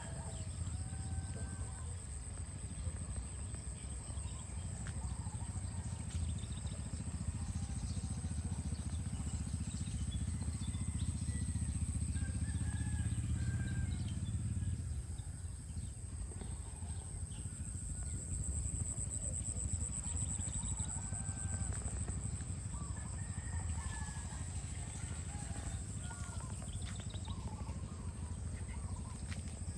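Rural outdoor ambience: many short bird chirps over a steady high insect drone, with a low rumble that eases off about halfway through.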